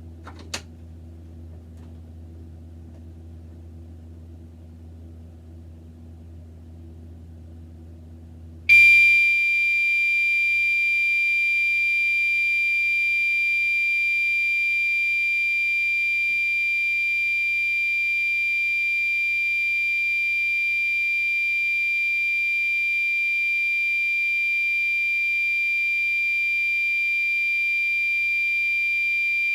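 Fire alarm under test: after a low steady hum, it comes on suddenly about nine seconds in with a loud, unbroken, high-pitched tone that holds steady.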